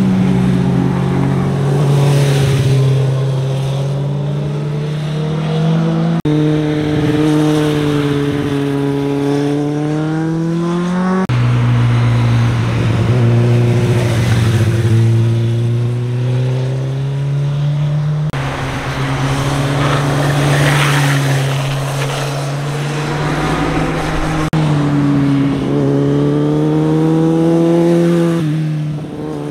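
Sport motorcycle engines, one bike after another, running hard through a tight bend: the engine note rises and falls with the throttle and gear changes. The sound switches abruptly from one bike to the next every five to seven seconds.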